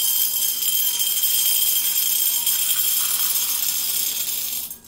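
One cup of dry chickpeas pouring into a glass mixing bowl: a steady, dense rattle of hard little beans pattering onto the glass, which stops suddenly near the end.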